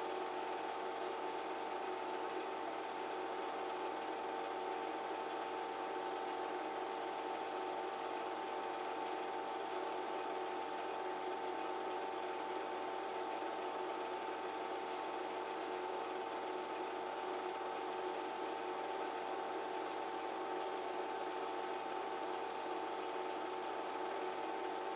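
Film projector running: a steady mechanical whir with a constant hum over even hiss, unchanging throughout.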